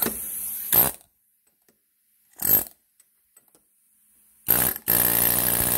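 Pneumatic impact (air) hammer rattling against a motorcycle handlebar spindle held in a vise, run in short bursts and then a longer one of about a second and a half starting about four and a half seconds in, to vibrate a stuck bearing off the spindle.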